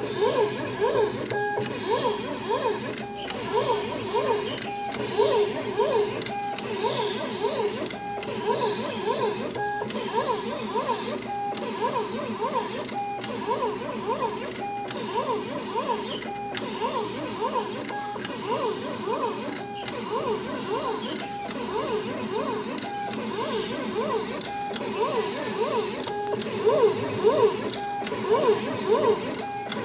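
Jinka AC1351 NXL vinyl cutting plotter cutting round sticker outlines at maximum speed. Its drive motors whine in quickly rising and falling pitches as the head traces each circle. A brief pause with a short steady tone recurs about every second and a half.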